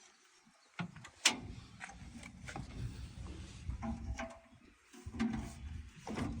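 Underseat storage locker being lifted and slid into place under a pickup's rear seat: a sharp knock about a second in, then a run of scattered knocks with low scraping and rubbing as it is worked into position.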